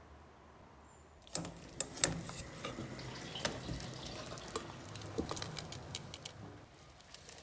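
Water boiling in a pot of potatoes: irregular bubbling pops and crackles over a hiss, starting about a second in, with one sharp click near two seconds, then quieter near the end.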